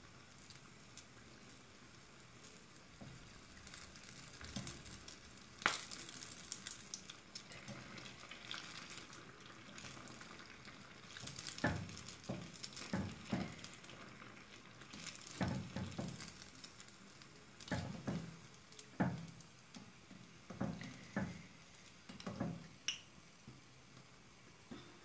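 Kavum batter sizzling as it deep-fries in hot oil in a small pan, with a string of short knocks and clatters from the ladle and stick against the pan, most of them in the second half.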